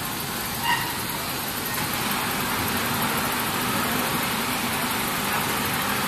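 Steady mechanical hum and hiss of running machinery on a garment factory floor, with a short high beep under a second in.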